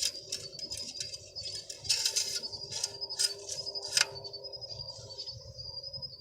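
Plastic quart bottle of motor oil handled and poured into the engine's oil filler: a few sharp clicks and knocks, the loudest about two and four seconds in. Crickets chirr steadily behind.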